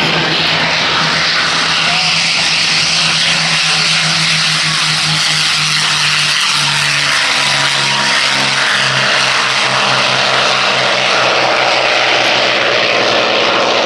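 Piston-engined propeller aircraft running loud and steady, a low engine drone under a dense rushing noise, the drone wavering slightly in pitch.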